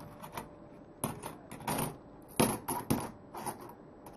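Coins dropped one at a time into the hopper of a 3D-printed plastic coin sorter, about a dozen sharp, irregularly spaced clinks of metal on plastic and on other coins.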